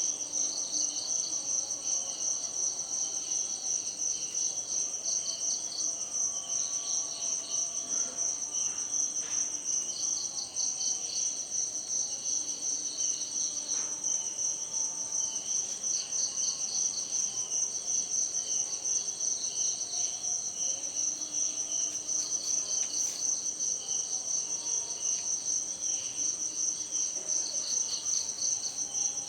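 A dense insect chorus: a steady high pulsing trill, with a second, lower chirping trill that starts and stops every few seconds over it.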